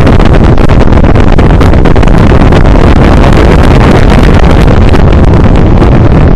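Electric fan's airstream blowing straight onto the microphone: a loud, steady rush of wind noise with fast, irregular buffeting.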